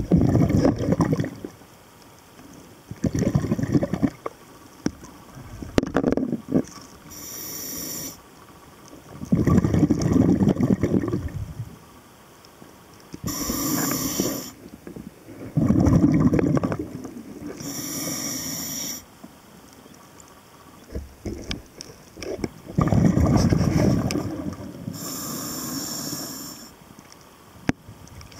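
A scuba diver breathing through a regulator: each breath is a short high hiss as air is drawn in, then a longer, louder rush of exhaled bubbles, about four breath cycles spaced several seconds apart.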